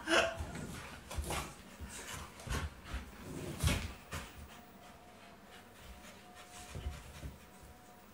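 Dogs scuffling and panting while they wrestle, with scattered short knocks and scrapes in the first half, the loudest about halfway through. It goes quieter in the second half, with a faint steady hum.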